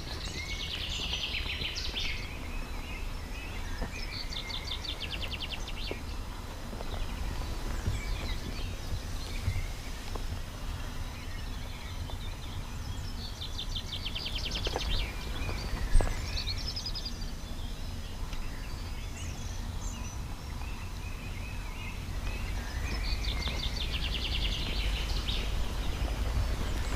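Songbirds singing outdoors: a rapid trilled phrase that comes back about every ten seconds, with other short calls between, over a steady low rumble. One sharp click about sixteen seconds in.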